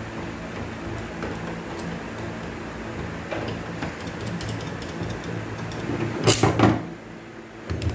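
Metal parts and tools clinking as a transfer case is taken apart, over a steady low hum, with a cluster of loud metallic clanks about six seconds in.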